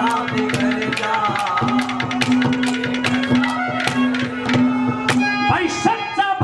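Live Haryanvi ragni accompaniment: harmonium holding a steady note under a melody, with quick, even hand-drum strokes. The held note drops out about five and a half seconds in.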